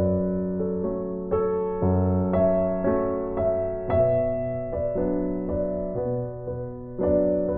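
Slow, gentle piano music, soft notes and chords struck about once or twice a second and left to ring out.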